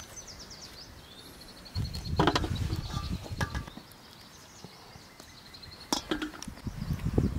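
Hands shelling boiled chestnuts over a steel bowl: rustling and a few sharp clicks, one about six seconds in as a peeled nut is dropped onto a metal tray. A bird chirps and trills through the first half.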